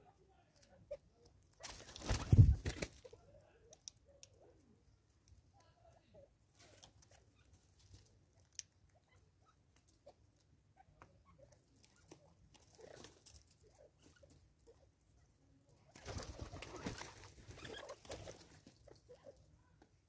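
Birds feeding on a wooden stump: scattered soft pecking taps, with two short rushes of wingbeats, one about two seconds in and a longer one near the end as the southern red-billed hornbill flies off.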